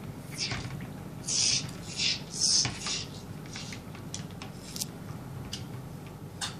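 Small plastic toy pieces and containers being handled: irregular clicks and light clatters, with a few short scraping rustles in the first three seconds.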